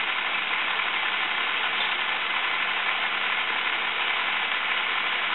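Space Rail marble run running: a steady whir and rattle from its motorized ball lift together with a chrome ball bearing rolling along the steel rails, with a faint hum in it.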